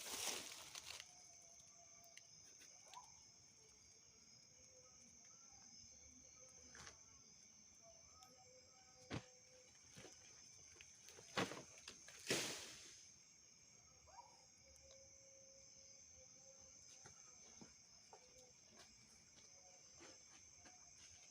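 Faint steady high-pitched drone of insects in the forest, with a few brief rustles and knocks, the loudest pair about twelve seconds in.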